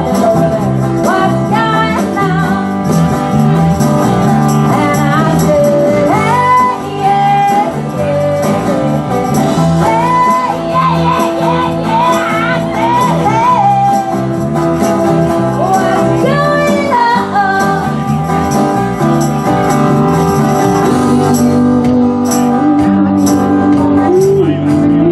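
Live band playing a song: a woman sings lead over acoustic guitar, bass guitar, drums and tambourine. About three to four seconds before the end, the steady high shimmer drops out, leaving separate high hits under the band.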